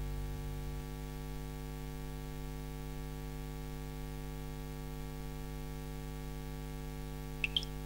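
Steady electrical mains hum, a low buzz with a stack of overtones. Near the end come two short, high chirps.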